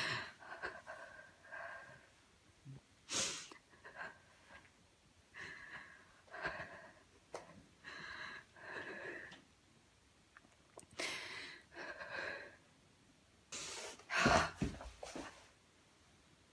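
A woman's frightened, ragged breathing: sharp gasping breaths and short high-pitched whimpers, coming in irregular bursts. The loudest pair of gasps comes about 14 seconds in.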